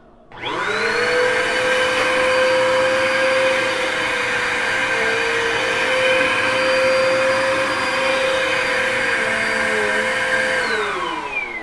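Vacuum cleaner switched on, its motor spinning up to a steady whine and running while it is pushed over cereal scattered on carpet, then switched off near the end, the pitch falling as the motor winds down.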